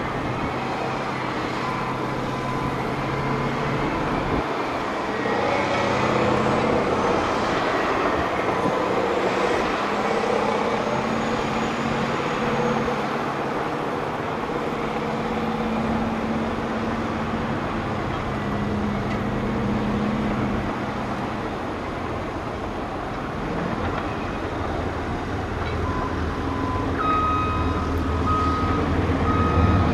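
Caterpillar 769D rigid dump trucks running under load on a dirt haul road, the engine note rising and falling as they drive. Near the end a reversing alarm starts beeping in a steady on-off pattern.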